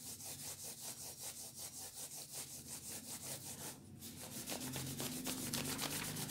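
Pencil shading on paper: quick back-and-forth strokes, about six a second, with a short break about four seconds in before the strokes resume more loosely.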